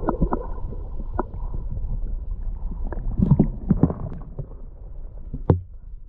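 Muffled underwater sound from a camera held beneath the sea surface: a low rumble of moving water with scattered clicks and knocks, the sharpest click near the end.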